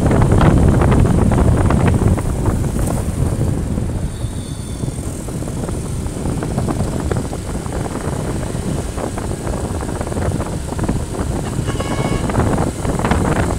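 Wind buffeting the microphone of a moving motorbike, with the bike's engine and the surrounding motorbike traffic underneath. It is louder for the first couple of seconds, then settles lower. A short high tone sounds near the end.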